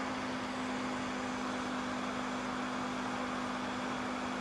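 Steady machine hum: a constant low tone over an even hiss, with no breaks or changes.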